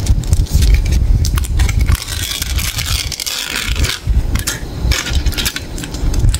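Foil and printed wrapper of a large chocolate bar crinkling and crackling as they are peeled back by hand. A busy rustle of many sharp crackles, thickest near the middle, over a low rumble.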